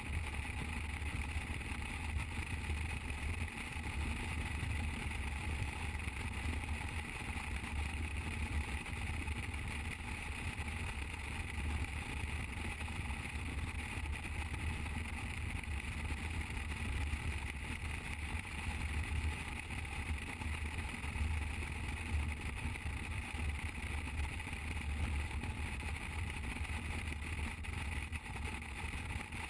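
Motorcycle cruising at steady highway speed: an even engine drone mixed with wind rush over the camera microphone, without changes in pace.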